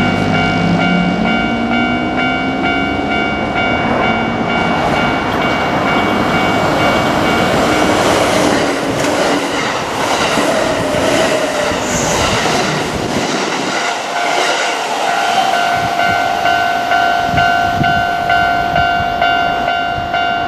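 Japanese level-crossing warning bell ringing steadily as a Kintetsu Osaka Line electric train runs over the crossing. A motor whine rises in pitch at the start, then the wheels clatter over the rail joints in a repeated rhythm through the second half.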